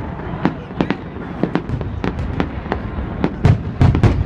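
Fireworks going off: a rapid, irregular string of sharp bangs and crackles, about two or three a second, with the heaviest booms about three and a half to four seconds in.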